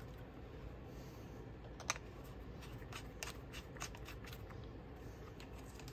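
Plastic clicks and handling sounds of a DJI Osmo Mobile SE smartphone gimbal being unfolded and its extension rod pulled out: one sharp click about two seconds in, then a quick run of lighter clicks.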